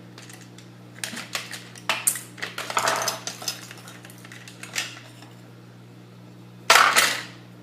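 Hard plastic parts of a Nerf blaster being handled and pulled apart, a scatter of clicks and rattles over several seconds, with a louder short rasp near the end.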